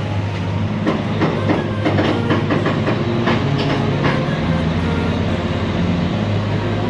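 Heavy diesel engine running steadily under frequent metallic rattles and clanks.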